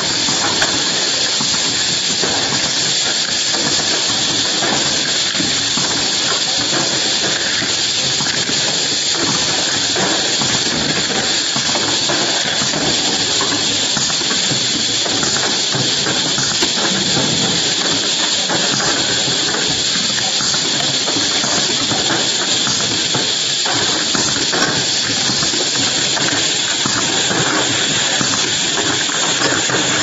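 Steady, loud hiss of air from vacuum and pneumatic perfume-filling machinery, unbroken and even throughout.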